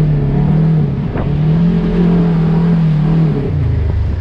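Side-by-side UTV engine running at steady medium revs as the buggy crawls over a rutted mud track, with a single knock about a second in; the revs drop near the end.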